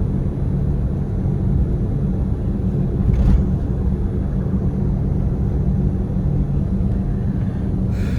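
A car's engine and road noise heard from inside the cabin while driving: a steady low rumble, with a brief louder bump about three seconds in.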